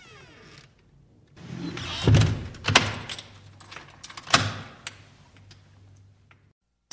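A short sound effect of rattling and scraping with three heavy clunks, the loudest about two seconds in, after the last moment of a cat's falling meow.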